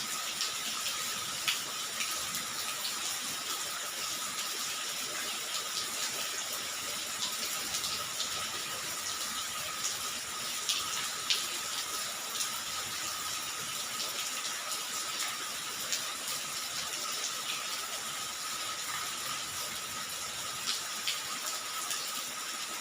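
Steady rain falling, an even hiss with scattered louder drops ticking now and then.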